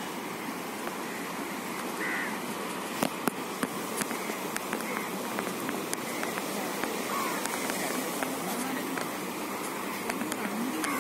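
Steady beach ambience: an even hiss of sea and wind on a phone microphone, with faint distant voices and a few sharp handling clicks about three seconds in.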